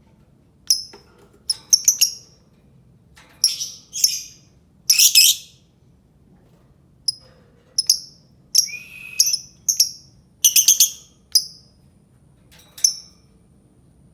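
Lovebird calling in short, shrill chirps, some single and some in quick clusters, spaced irregularly with gaps of up to a second or two.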